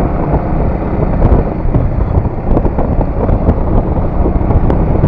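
Wind rushing over the camera microphone on a moving motorcycle, a loud, steady low rumble with road and engine noise from a Bajaj Avenger 220 Cruise underneath.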